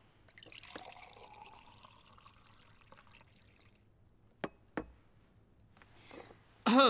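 Water poured from a white electric kettle into a cup, splashing with a faintly rising note as the cup fills, then two sharp knocks a little apart. A brief, loud voice sound comes right at the end.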